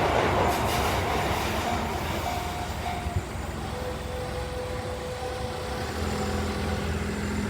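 Tobu Noda Line train pulling away from the level crossing, its rumble steadily fading, with a faint whine in the middle.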